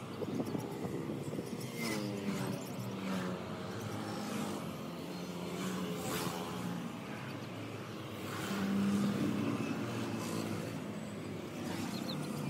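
A motor vehicle's engine running, its pitch rising and falling a few times.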